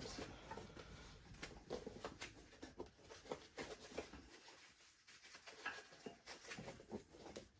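Faint rubbing and light scattered clicks of a dirt bike's rubber inner tube and tire being worked by hand.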